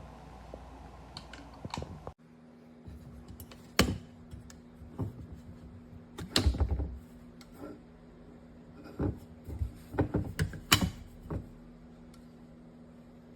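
A series of irregular sharp clicks and knocks with a few low thumps, the heaviest cluster about halfway through, over a faint steady hum that starts abruptly about two seconds in.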